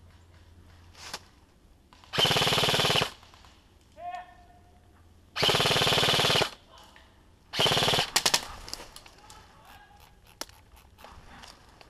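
G&G M4 electric airsoft rifle firing three full-auto bursts of about a second each, the second the longest, followed by a few scattered small ticks.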